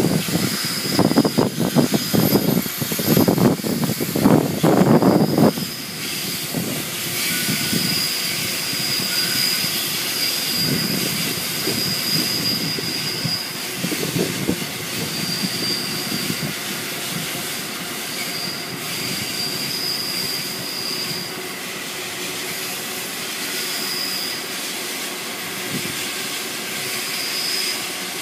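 Freight train wagons rolling slowly past, with a thin, high wheel squeal that comes and goes over a steady rumble. The rumble is louder and uneven for the first five seconds or so.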